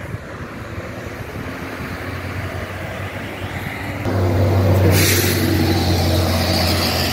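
Road traffic on a multi-lane road, with a bus passing close by: its low engine drone comes in about four seconds in and is loudest a second later, with a brief hiss as it goes past.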